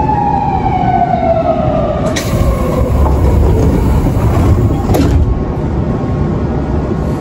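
Inside a Nankai 1000 series electric train slowing down: the traction motors' whine falls steadily in pitch over the first two seconds or so as the train brakes. Then wheel and track rumble carries on, with one sharp click about five seconds in.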